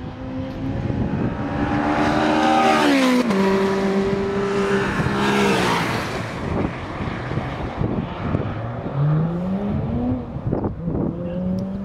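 Two supercars pass close by at speed, about three and six seconds in, each engine note dropping sharply in pitch as it goes past. Further supercar engines are heard accelerating with a rising note, with an upshift near the end.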